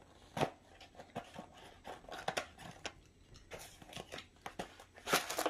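Cardboard packaging being handled and opened by hand: scattered rustles, scrapes and light ticks, with a few louder scrapes near the end.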